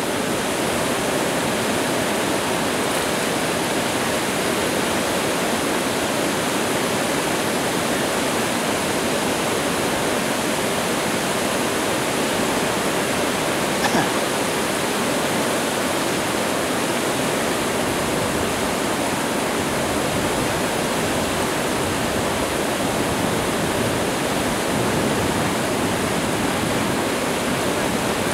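Whitewater rushing steadily over a rock ledge rapid, an even, unbroken roar of water. A single brief click about halfway through.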